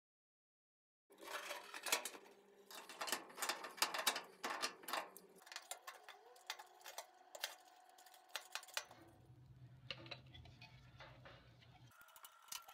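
Silence for about a second, then many light clicks and metallic clinks of small parts being handled: a brass fitting, washer and float valve for a swamp cooler being fitted together, over a faint steady hum.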